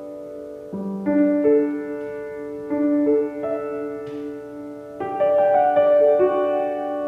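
Slow, gentle piano music: sustained chords struck every second or two, each ringing out and fading.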